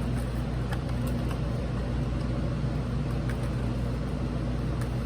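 Steady low background hum, with a few faint clicks as the plastic case of an alarm keypad is handled while being pried open.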